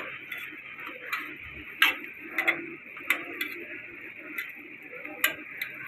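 Parathas frying in oil on a large flat griddle, a steady sizzle, with sharp irregular clicks of metal tongs striking the griddle, the loudest a little under two seconds in.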